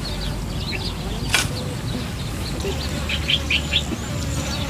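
Small birds chirping in short high notes, with a run of four louder chirps past the middle. One sharp click comes about a second in, over a low steady rumble.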